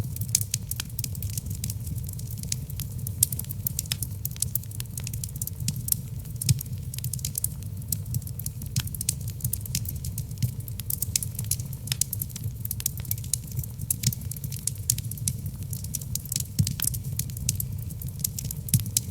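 Wood logs burning in a fireplace, crackling with many irregular sharp pops over a steady low rumble of the flames. A few pops stand out louder, one about three seconds in and another about six and a half seconds in.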